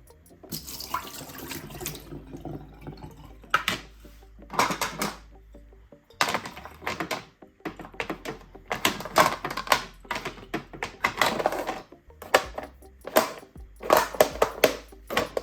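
Water from a tap running and splashing in short, irregular bursts.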